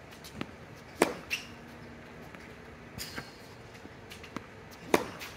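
Tennis racket striking a ball twice, about four seconds apart, with lighter ball bounces on the hard court between the hits.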